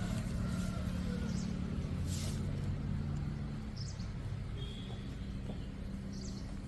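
A steady low mechanical hum, like an engine or motor running, with a few short high chirps over it.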